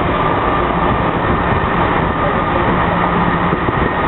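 MTR Kwun Tong Line train in motion, steady running noise with the thin, even whine of its traction motors.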